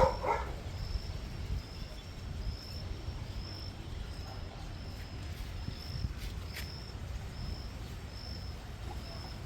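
A dog barks twice in quick succession at the very start. After that there is a steady low outdoor rumble with a faint high chirp repeating about every two-thirds of a second.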